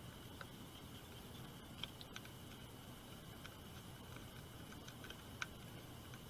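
A few faint, scattered clicks and ticks as a small precision screwdriver drives M3 screws into the robot arm's base plate, over a steady faint hum.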